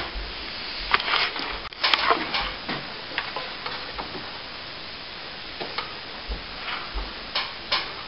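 Short, irregular scrapes and taps of a metal plastering tool working wet plaster, busier in the first couple of seconds and sparser after.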